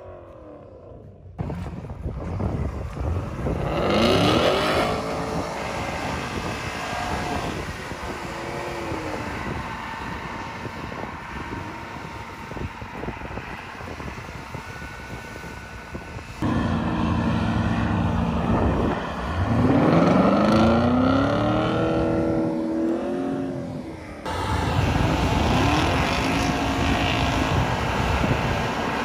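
Engines of a Hummer H1 and a Porsche Cayenne running and revving in deep snow as the Hummer tows the stuck Cayenne out on a strap, the pitch rising in several sweeps. The sound jumps abruptly in level a few times.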